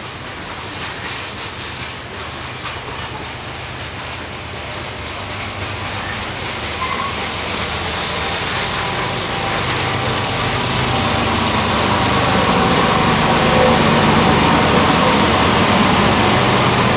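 Freight train rolling past, then a diesel locomotive's engine growing steadily louder through the second half as it draws near.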